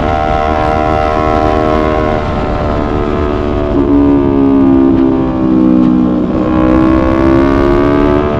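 Yamaha YZF-R3 parallel-twin engine running under way, with a steady engine note over low rumble. The pitch drops about four seconds in, then slowly climbs again.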